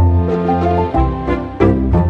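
Background music: an upbeat instrumental track with a bass line and plucked-sounding melody notes.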